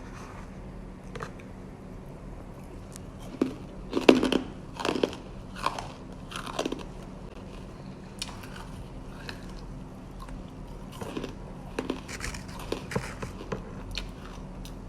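Someone biting and chewing hard, crunchy Argo cornstarch chunks that were microwaved and then frozen. One run of loud crunches comes about four to seven seconds in and another about eleven to fourteen seconds in.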